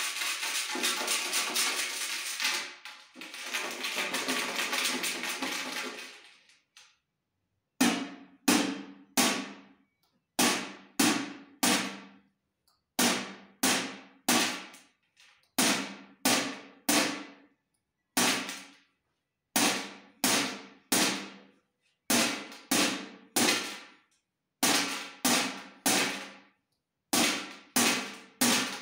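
A round metal tin shaken as a rattle for about six seconds, then, after a short pause, struck by hand in a steady beat: groups of three or four sharp ringing hits, about two a second.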